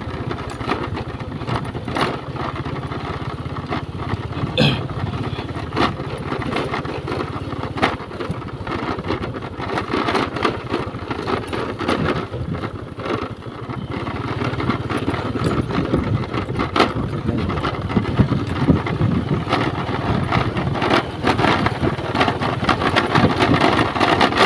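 Small motorcycle engine running steadily at low road speed, with a rough rumbling noise throughout, a little louder in the second half.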